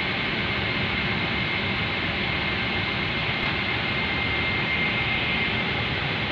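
Steady cabin noise of a Boeing 777-300 airliner standing on the ground: an even rush of air with a thin, steady high whine over it.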